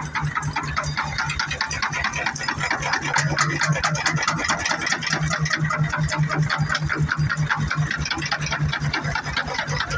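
Large antique stationary engine with twin spoked flywheels running steadily: a fast, even mechanical clatter over a low pulsing hum.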